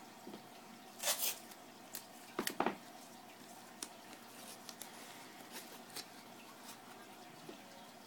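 Tape being torn and pressed onto a container packed in a styrofoam box: a short rip about a second in, a lower scrape and rustle around two and a half seconds, then light clicks and handling noises.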